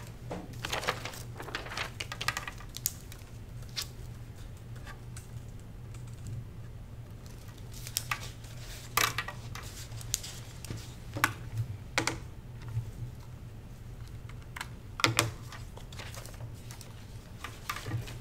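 Laptop keyboard typing: irregular runs of key clicks with a few louder taps, over a steady low hum.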